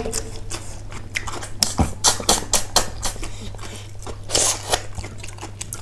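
Close-miked mukbang eating sounds: repeated wet clicks and smacks of chewing and lip smacking, with a longer noisy burst about four and a half seconds in, over a steady low hum.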